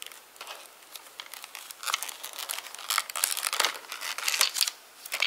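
Packaging being crinkled and torn open by hand, a run of irregular quick rustles, as a set of grips is unwrapped.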